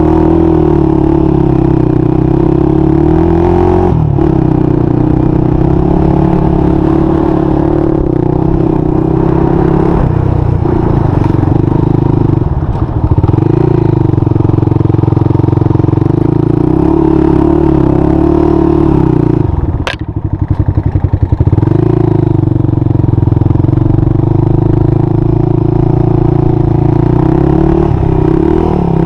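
Honda 400EX's single-cylinder four-stroke engine running under throttle, its pitch rising and falling as the revs go up and down, with short throttle lifts a few seconds in and around the middle. About two-thirds of the way through a sharp click comes as the revs drop to a slow, chugging beat for a couple of seconds before pulling up again.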